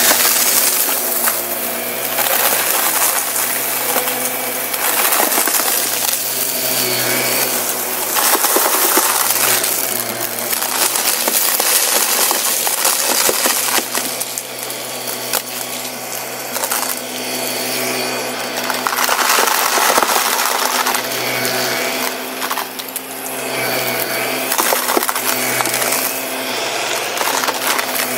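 Shark Lift-Away upright vacuum running on carpet with a steady motor hum, while star confetti and crunchy debris crackle and rattle as they are sucked up the nozzle.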